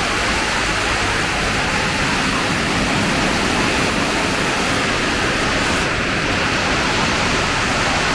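Torrential monsoon rain pouring down onto a flat sheet-metal roof, a steady, dense rush of water without a break.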